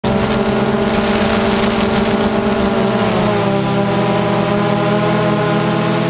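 DJI Phantom 2 quadcopter's motors and propellers humming steadily as heard from the GoPro it carries, a stack of even tones whose pitch shifts slightly lower about three seconds in as the drone changes speed.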